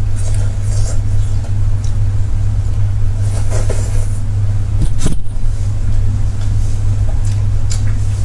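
Close-miked eating: chewing and wet lip smacks of someone eating meat, over a steady low hum. There is one sharp click about five seconds in.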